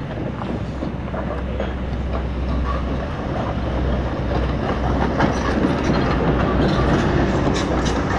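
Bicycle riding over a rough, rocky road: tyres crunching on stones and the bike rattling steadily, with sharp clicks and knocks coming more often in the last few seconds.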